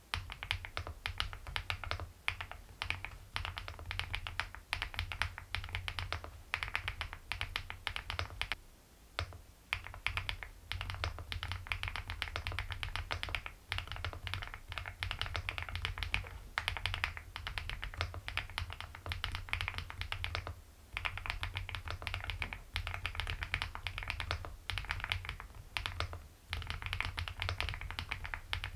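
Continuous typing on an Aula F75 mechanical keyboard fitted with HMX Milky White switches: a fast, dense stream of key clacks, broken by a few short pauses.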